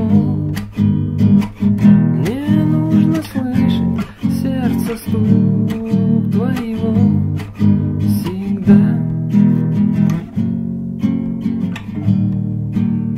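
Song accompaniment of strummed acoustic guitar, with a gliding wordless melody line over the chords.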